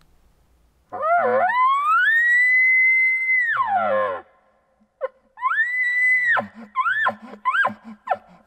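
Hunter's elk bugle call blown through a camouflage-wrapped bugle tube, imitating a bull elk: a long call that starts with a low growl, climbs to a high whistle held for a couple of seconds, and drops back down. After a short pause comes a shorter second bugle, then two quick short notes.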